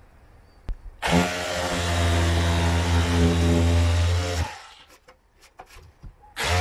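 Makita cordless 18V drywall saw cutting into plasterboard ceiling. Its motor starts about a second in, runs steadily for about three and a half seconds, then stops, and it starts again near the end.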